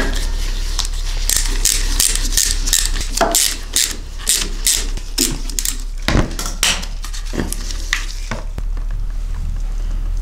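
Irregular metallic clicks and clinks of a ratchet and the oil drain bolt as the bolt is unscrewed from a Kawasaki KX450F's engine for an oil change. The clicking dies down near the end as the oil starts to drain.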